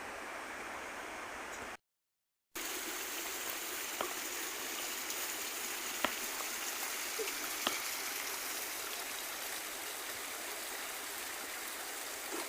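Water of a small rain-fed creek running steadily, with a few sharp clicks; the sound cuts out completely for under a second about two seconds in.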